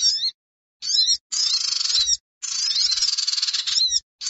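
Looped recording of sunbird ('sogon') calls played as a trapping lure: rapid, high chirps and twitters over a buzzy hiss. It comes in about four bursts that start and stop abruptly, with dead silent gaps between.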